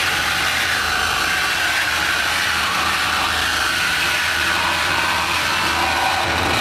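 Harsh noise music played live on electronic gear: a dense, unbroken grinding wall of noise at steady loudness. It is strongest in the upper middle, where faint bands waver slowly in pitch, over a steady low hum.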